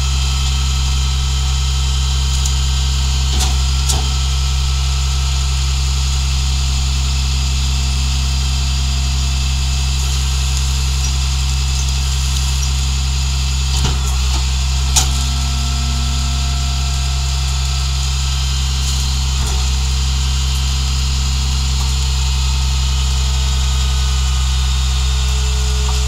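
New Way rear-loader garbage truck running steadily at idle with its hydraulics engaged, a thin steady whine over the engine drone, as the hydraulic cart tipper dumps a wheeled cart into the hopper. A few sharp knocks of the cart and tipper, the loudest about fifteen seconds in.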